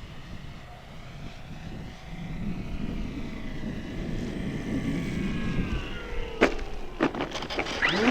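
Electric motor and propeller of a radio-controlled FMS de Havilland Beaver model, faintly whining as it flies past on a full-flap approach, its pitch sliding down as it goes by, under wind noise on the microphone. Near the end come a few sharp knocks, and the motor pitch starts to rise.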